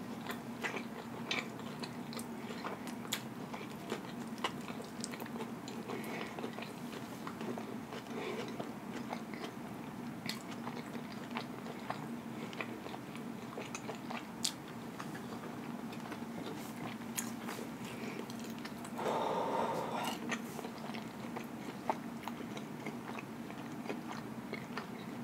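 A person chewing a big mouthful of bacon cheeseburger with the mouth closed: many small mouth clicks and smacks over a faint steady hum, with one short louder sound about three-quarters of the way through.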